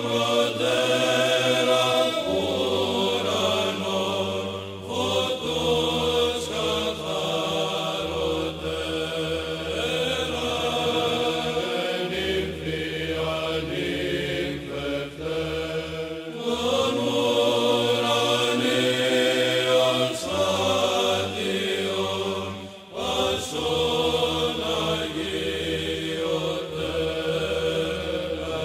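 Background music: chanting voices holding long notes over a low sustained drone, the bass note changing every few seconds.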